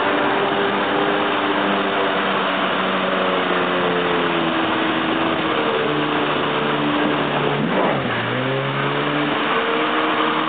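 Engine of a watercraft towing a wakeboarder, running steadily at speed over a constant rush of water and wind. About eight seconds in its pitch dips briefly, then climbs back.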